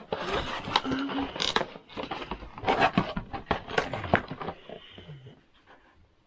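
Cardboard doll box being handled and turned over: irregular rustling, scraping and tapping of cardboard, dying down after about four and a half seconds.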